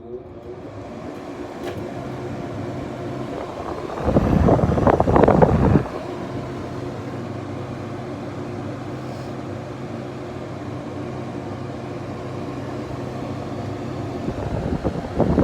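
2009 LG window air conditioner starting up and running: a steady motor hum that swells over the first couple of seconds. Louder noisy stretches come about four seconds in and again near the end.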